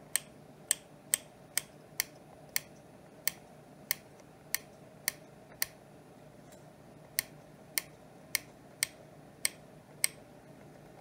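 Rotary encoder knob on a CB radio rebuilt as a scanner, clicking through its detents one step at a time as it scrolls through talkgroups. About seventeen sharp clicks, roughly two a second, with a pause of about a second and a half near the middle, over a faint steady hum.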